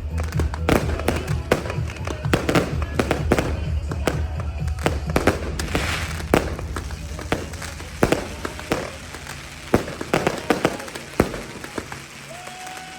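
Fireworks bursting in rapid succession, many sharp bangs and crackles, over music with a heavy bass line. The bass fades over the last few seconds while the bangs thin out.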